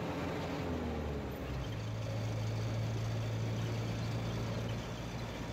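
Engine and road noise of a moving vehicle: the engine note falls during the first second or so, then settles into a steady low hum.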